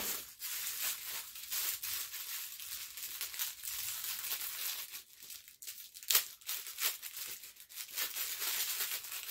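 Thin plastic packaging crinkling and rustling as it is handled and opened, with irregular sharp crackles.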